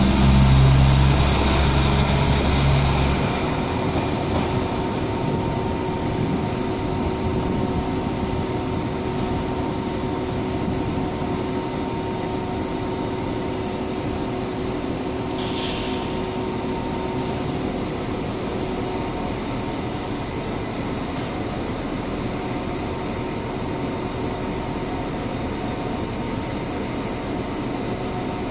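Irish Rail 22000 class InterCity railcar's diesel engines running loud as the train moves past and away, fading after about three seconds. This gives way to a steady railway rumble with a faint held hum, broken by a short hiss about halfway through.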